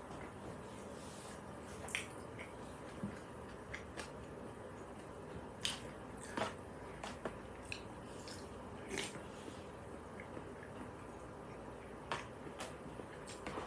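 Eating sounds: a spoon clicks and scrapes against a bowl now and then, with faint chewing in between.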